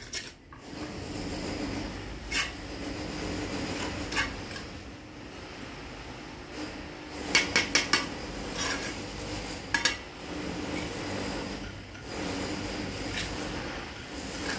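Mason's trowel scraping mortar and knocking on clay bricks as they are laid: scattered sharp clinks, with a quick run of four taps about halfway through and a couple more soon after.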